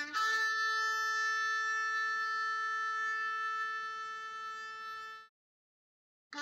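Intro music: one long held note that slowly fades and stops about five seconds in, then dead silence for about a second before the music starts again at the very end.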